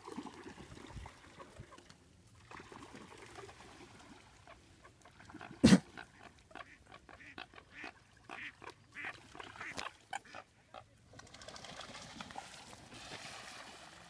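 A flock of American coots calling with a run of short calls, strongest between about six and ten seconds in. A single sharp knock about six seconds in is the loudest sound.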